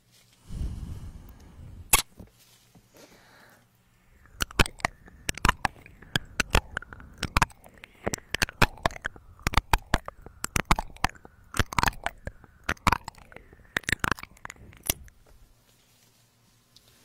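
Close-up wet mouth and licking sounds on the ear of a 3Dio binaural microphone: a dense run of sharp clicks and crackles from about four seconds in until near the end. Before it, a low rumble of the microphone being handled, with a single knock about two seconds in.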